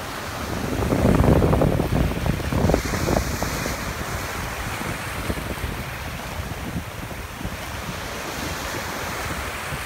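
Sea waves washing in, with wind buffeting the microphone in heavy gusts between about one and three and a half seconds in.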